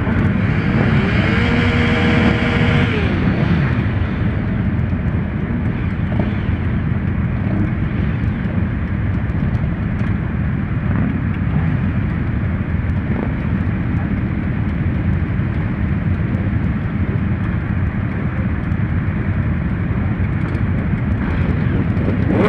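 Many motorcycle engines idling together in a packed crowd of bikes, a steady low rumble. About a second in, one engine revs up, holds and drops back.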